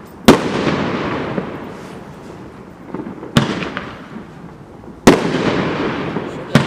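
Dominator "Fear Not" firework bursting in the air: four sharp bangs about 1.5 to 3 seconds apart, the first and third loudest, each followed by a long fading tail.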